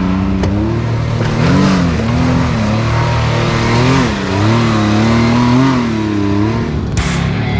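Can-Am X3 side-by-side's turbocharged three-cylinder engine revving in uneven swells, its pitch rising and falling as the throttle is worked on a steep dirt-and-rock climb.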